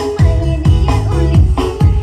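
Loud electronic dance music played through the Cahaya 51 Audio parade sound system: a heavy kick drum about twice a second over deep bass, with melody above.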